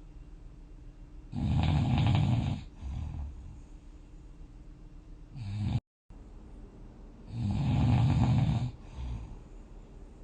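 A person snoring in sleep: two loud snores about six seconds apart, each followed by a shorter, softer one.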